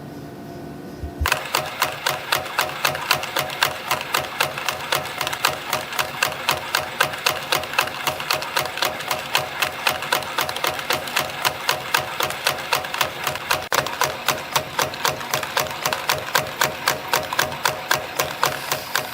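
CNC spring coiling machine (YHM CF-310) coiling 0.7 mm wire into compression springs. A steady hum gives way, about a second in, to a fast, even mechanical clatter of about four strokes a second as the machine cycles.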